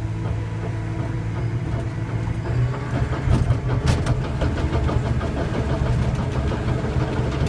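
Cat D5K2 dozer's diesel engine running, heard from the cab, picking up about two and a half seconds in as the machine moves off on a forward pass, with a clatter of the steel tracks from then on.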